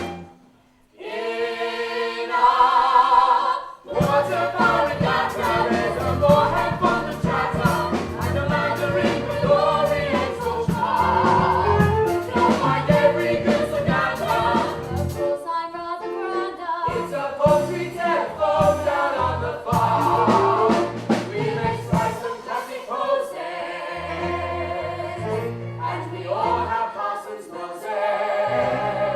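A chorus of voices singing a show tune over band accompaniment with a steady beat. The music breaks off briefly about a second in, then resumes.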